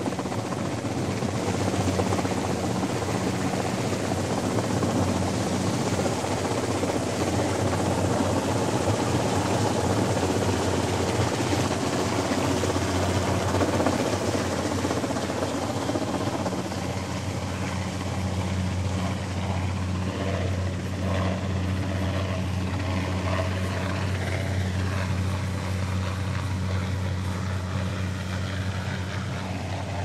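Steady low engine drone under a broad rushing noise, easing slightly about halfway through.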